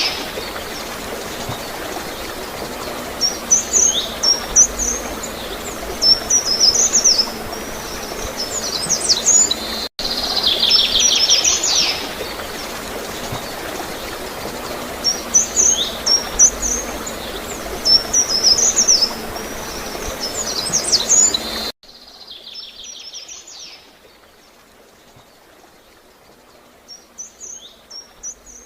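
Small songbirds chirping and trilling in short high phrases over steadily gurgling, flowing water. About three quarters of the way through, the water and birds drop suddenly to a much quieter level.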